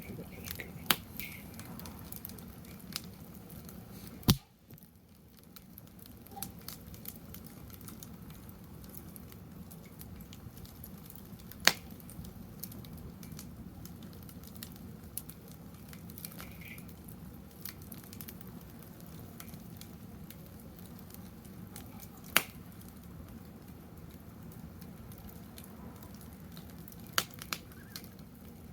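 Wood fire burning in a fire pit: a steady crackling hiss with sharp pops from the burning wood every few seconds, the loudest about four, twelve and twenty-two seconds in.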